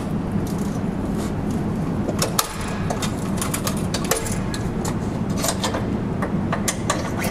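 Scattered metal clicks and clanks from the M3M .50-calibre machine gun's door mount and its linked ammunition belt as the gun is swung through its traverse and elevation ranges, a check that nothing catches. A steady low hum runs underneath.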